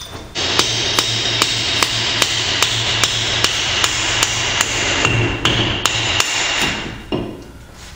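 Hammer blows driving the old pinion gear out of a GM 8.5-inch 10-bolt rear axle housing: a steady run of strikes about two and a half a second over a continuous metallic ringing, stopping about seven seconds in.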